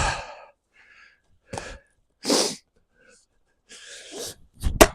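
Heavy, sharp exhales and grunts of a man swinging an axe, with an axe blow striking a log near the end.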